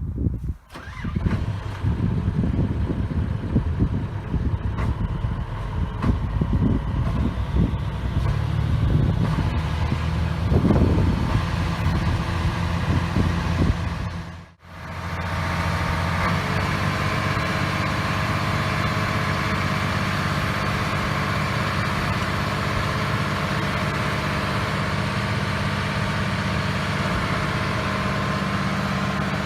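Hitachi EX400LC-1 excavator's diesel engine starting up and running unevenly, with irregular knocks. About halfway in the sound breaks off sharply; after that the engine runs at a steady speed.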